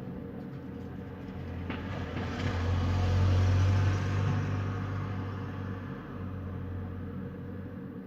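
Wind at night: a gust swells to a peak about three seconds in, then dies away over a steady low hum.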